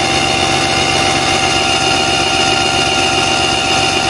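1987–88 Mercury outboard with ADI ignition turning over at a steady speed, a constant mechanical whine over a low rumble, during an idle timing check. The timing reads about 8 degrees, past the 4–6° ATDC spec.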